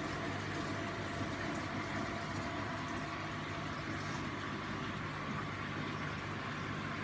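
Steady hum of aquarium pumps with running water from coral holding tanks, an even mechanical drone that does not change.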